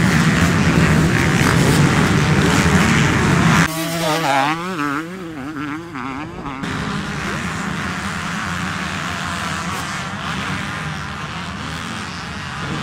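Motocross bikes running at race speed: a pack of engines, loud and dense, then about four seconds in a sudden change to one bike whose engine revs rise and fall repeatedly for a few seconds, followed by a steadier, quieter engine sound.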